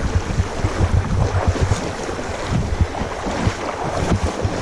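Wind buffeting the microphone in uneven gusts over the steady rush of swift river water.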